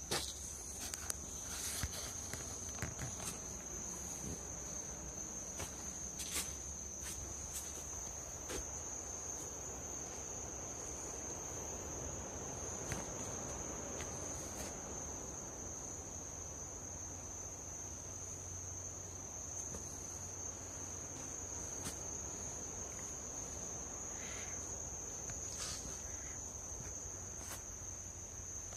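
Night insects keep up a steady, unbroken high-pitched trill. A few sharp clicks come in the first few seconds and once more a little later.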